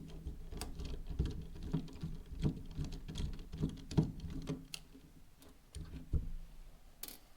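Screwdriver bit backing small screws out of a plastic keychain housing: irregular light clicks and scrapes of metal on plastic, thinning out near the end.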